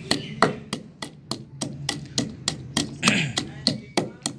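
Wooden pestle pounding dried pomegranate seeds (anardana) in a stone mortar: a steady run of sharp knocks, about three strikes a second.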